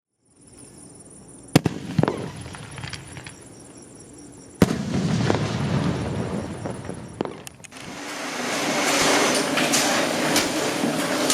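Fireworks going off. There are several separate sharp bangs in the first seven or so seconds, then dense, continuous crackling builds from about eight seconds in.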